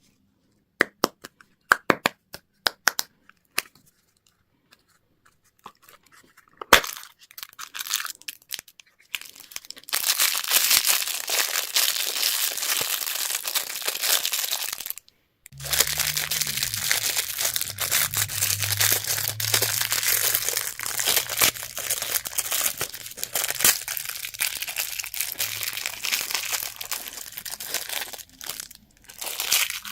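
Candy wrappers being torn open and crinkled. First come a few sharp clicks and snaps, then a long stretch of dense crinkling that starts about a third of the way in, breaks off briefly near the middle, and carries on almost to the end.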